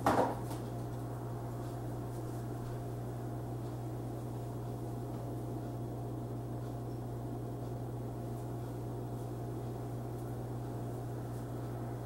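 A brief handling knock right at the start, then a steady low electrical hum under even room noise.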